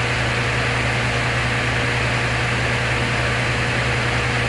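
Steady low hum over a constant hiss, unchanging throughout, with no distinct clicks or knocks: background room noise.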